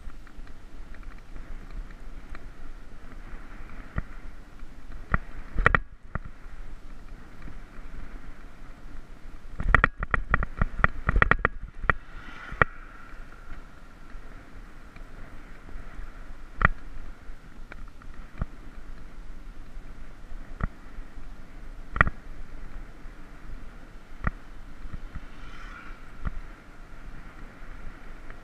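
Riding noise picked up by a camera mounted on a moving bicycle: a steady rush of wind and tyre noise with sharp knocks and rattles over bumps, a quick run of them about ten seconds in.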